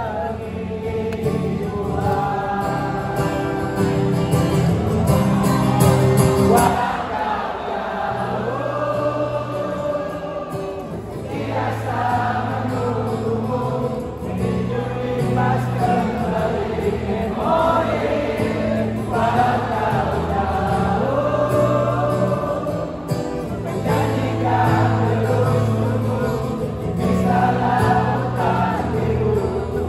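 Large concert crowd singing along together with a strummed acoustic guitar and band, recorded from within the audience.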